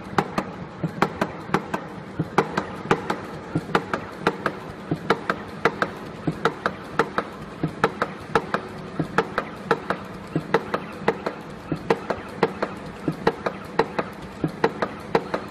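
Computer-controlled webbing cutting and punching machine running, its cutter and hole punch clacking sharply about three times a second over a low steady hum as it feeds and cuts strap into punched pieces.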